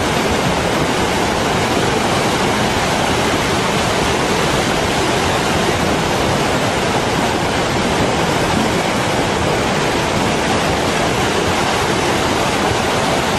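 Flash flood of muddy, debris-laden water rushing down a rocky channel: a loud, steady rushing noise of churning water and mud.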